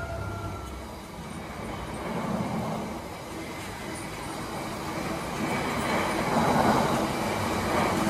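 Freightliner diesel freight locomotive passing at speed, its engine note fading in the first second. Then the steady rumble of a long rake of open box wagons rolling past on the rails, growing louder toward the end.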